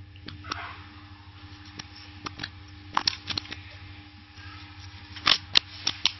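Paper sheets of an instruction manual rustling and crackling as they are handled, a string of sharp crinkles loudest about three seconds in and again near the end, over a steady low hum.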